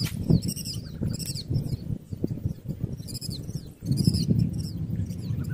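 Strong wind rumbling on the microphone, with a bird repeatedly calling in clusters of short, high chirps that fall in pitch.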